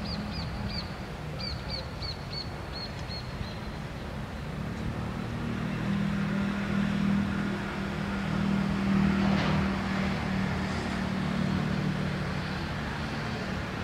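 Low, steady engine hum that grows louder in the middle. Over the first few seconds a bird gives a quick run of about ten short, high chirps that fall slightly in pitch.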